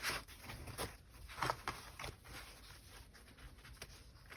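Faint rustles and soft taps of paper pages and a fabric tab being handled, a few brief swishes with the clearest about a second and a half in.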